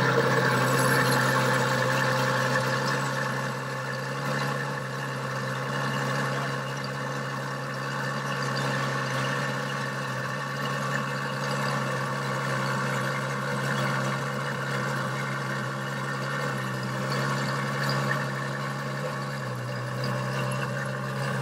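Ferrari Monza SP1's 6.5-litre V12 idling steadily, its idle easing down over the first few seconds and then holding even.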